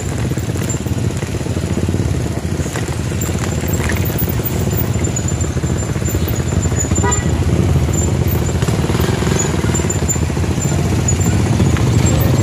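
Steady rumbling of wind buffeting the microphone while riding, over the drone of a motorcycle engine running.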